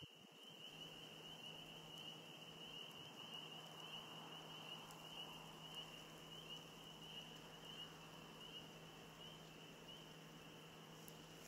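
Faint high-pitched animal chorus, steady with a fine pulsing, over a low steady hum.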